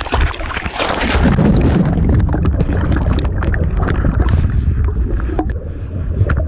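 A person plunging into the water with a splash about a second in, then muffled rushing water and bubbling heard from underwater.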